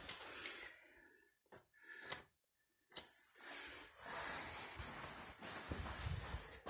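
Faint rustling noise with three sharp clicks in a quieter stretch about a second and a half to three seconds in.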